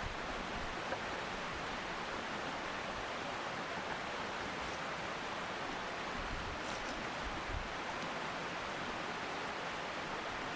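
Steady rushing of a mountain stream, with a few faint clicks about seven and eight seconds in.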